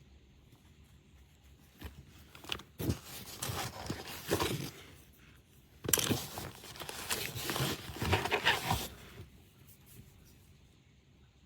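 Rustling and clicking handling noises in two stretches of a few seconds each, like objects or packaging being moved about.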